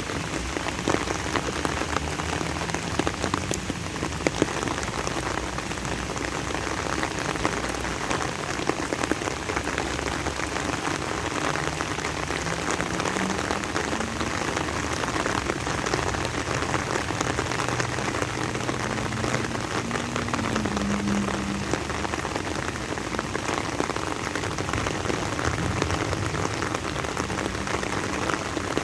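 Steady rain falling, a continuous dense patter of many individual drops.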